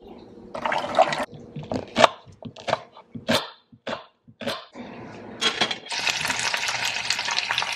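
Tap water runs briefly into a steel pot of soaked kidney beans. Then comes a run of sharp knife cuts through a red onion on a wooden chopping board. From about two-thirds of the way in, sliced onions sizzle in hot oil in a steel pan.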